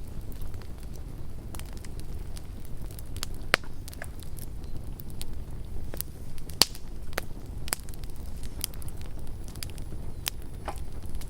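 Wood campfire burning with a steady low rumble and irregular sharp crackles and pops. The loudest pops come about three and a half seconds in and again near seven seconds.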